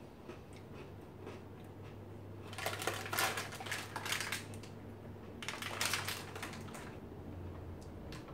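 Plastic Oreo cookie package crinkling as it is picked up and handled, in two spells of crackling, the first about two and a half seconds in and the second about three seconds later.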